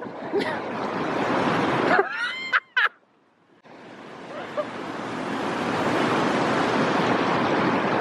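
Mountain river rushing over granite ledges in a small white-water cascade, a steady noisy wash. It drops out briefly about three seconds in, then swells back.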